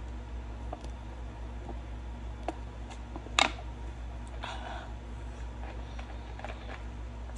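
Steady low room hum with a few small handling clicks, and one sharp knock about three and a half seconds in as a plastic drink bottle is put down.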